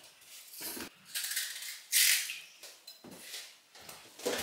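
Kitchen knife cutting and scraping the rind off melon slices: a few short rasping sounds, the loudest about two seconds in.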